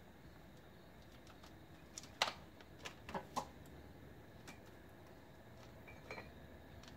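Scattered clicks and taps of hens' claws on a plastic milk crate as they shift their footing. The loudest tap comes about two seconds in, followed by a quick run of taps about a second later.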